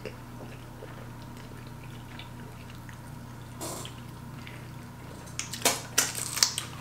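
Close-up wet eating sounds: quiet chewing, lip smacks and squishy mouth noises over a faint steady low hum, with a few louder short crunchy bursts near the end as cucumber dipped in seafood sauce is eaten.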